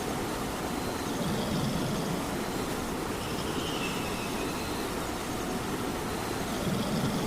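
Steady rain, with a cat's snoring swelling and fading every two to three seconds.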